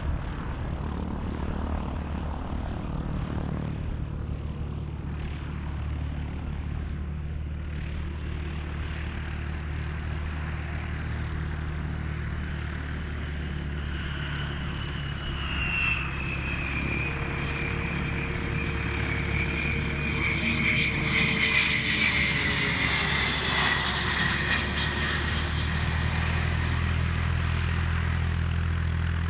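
Cessna Citation business jet landing, its twin turbofans whining. The whine grows louder and slides down in pitch as the jet comes in and passes, loudest about three-quarters of the way through, over a steady low engine hum.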